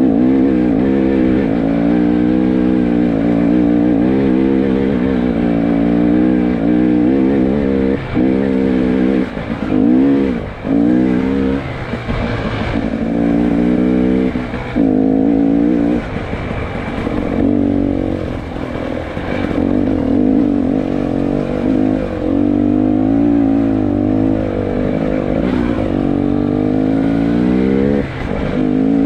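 A 300 cc two-stroke enduro motorcycle engine being ridden on a rough dirt trail, revving up and down with the throttle, with brief drops in revs several times as the rider backs off.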